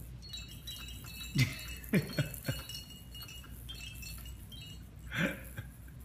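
Chimes in a baby play gym's hanging toys tinkling as the toys are pulled and swung, with a few short, louder low sounds among them, the last near the end.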